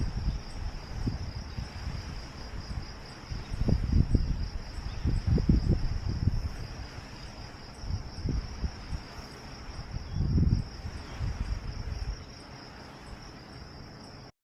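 Crickets trilling steadily in a high pitch, with low rumbles coming and going several times, the strongest about four, five and a half and ten seconds in.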